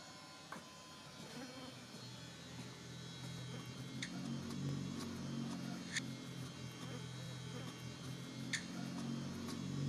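An insect buzzing, growing louder from about two seconds in, with three short, sharp high chirps about two seconds apart.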